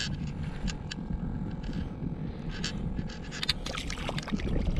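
Wind buffeting the microphone in a steady low rumble, with scattered sharp clicks and rustles, a cluster of them about three and a half seconds in.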